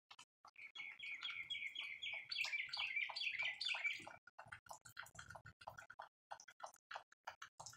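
A songbird singing a fast run of repeated chirps for about three and a half seconds. Faint irregular ticks of rain dripping continue under and after the song.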